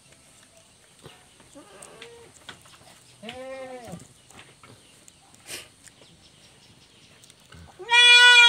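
Goat kid bleating while its broken hind leg is held and splinted: a faint call about two seconds in, a short bleat about three seconds in, and a loud, longer, high bleat near the end.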